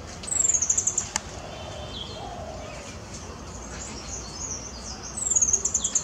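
A small bird singing a fast run of very high, slightly falling notes, once just after the start and again near the end, with softer bird calls in between. A single sharp click comes about a second in.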